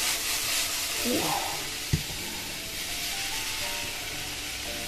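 Saffron milk cap mushrooms and garlic sizzling in olive oil in a frying pan over high heat, a steady hiss, with soft background music of slow single notes. A brief voice sounds about a second in, and a single sharp knock about two seconds in.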